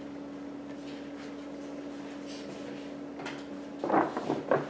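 Large paper shopping bag rustling and crinkling as hands grip and move it, a short cluster of crackles near the end. Before it, only a faint steady hum.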